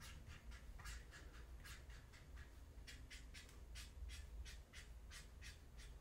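Marker pen drawing short, quick strokes on a paper pad, a faint swish with each stroke, about two or three a second, as it draws blades of grass.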